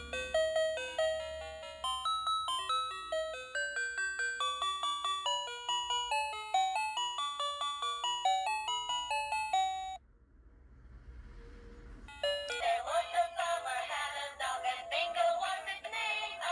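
A battery toy's electronic sound chip playing a quick, chiming beep melody. It breaks off about ten seconds in, and after a short pause a busier electronic tune with a synthetic singing voice starts.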